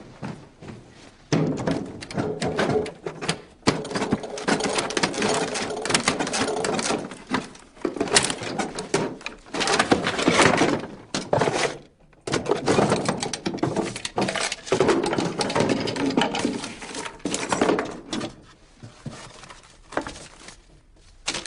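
Wooden writing desk being forced open by hand: a dense run of rattling, knocking and scraping at its lock and drawers, breaking off briefly about halfway, then going quieter near the end.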